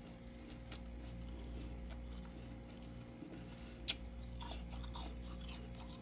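Freezer frost crunching softly as it is bitten and chewed: scattered crisp crackles, with one sharper crack about four seconds in, over a steady low hum.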